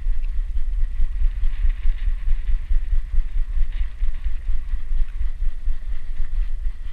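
Low, fluctuating rumble of wind and handling noise on a GoPro action camera worn by a dog, with no clear separate sounds on top.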